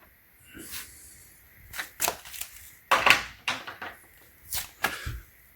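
Irregular metallic clicks and knocks of a triple-square spline bit socket and its wrench being fitted to a bolt and tried, the loudest knock about three seconds in.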